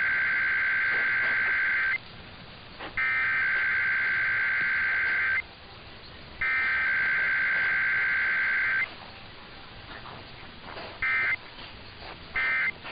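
Emergency Alert System SAME data bursts for a Required Weekly Test: three long, buzzy digital warbles of about two and a half seconds each, a second apart, that make up the header. About two seconds after the third, two short blips of the end-of-message code follow, with no attention tone or voice message in between.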